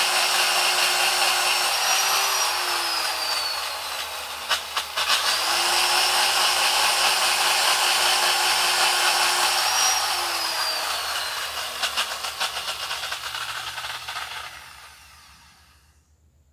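Old 1970s electric drill boring into maçaranduba hardwood, its motor running with a steady whine and then winding down, twice. There are a few clicks in the short pause between the two runs, and the drill runs down to a stop near the end.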